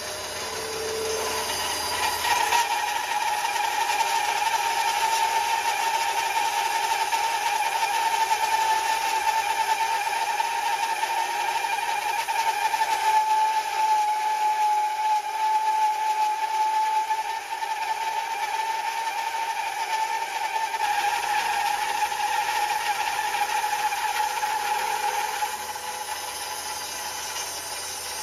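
Ryobi 9-inch benchtop bandsaw resawing a monkey pod slab about 12 inches tall, the blade fed slowly through the wood with a steady whine over the rasp of the cut. The sound swells about a second and a half in and eases off a few seconds before the end.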